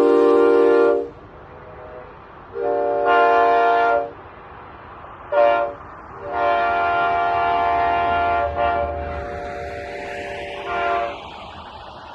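Nathan K5HA five-chime train horn sounding its chord in the long-long-short-long grade-crossing pattern. A blast ends about a second in, then comes another long blast, a brief toot, and a final long blast of about four and a half seconds that weakens and trails off near the end.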